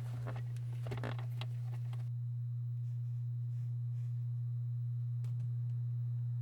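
A steady low electrical hum, with light clicks and scrapes in the first two seconds from a Phillips screwdriver backing screws out of a plastic center console.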